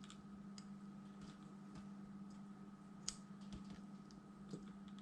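Faint, scattered light ticks and taps from soldering a row of pins on a small circuit board, the sharpest about three seconds in, over a steady low hum.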